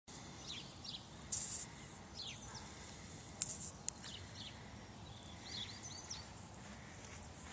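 Small birds chirping now and then, short calls that drop in pitch, over a steady outdoor hiss. Two brief scuffing noises break in during the first half.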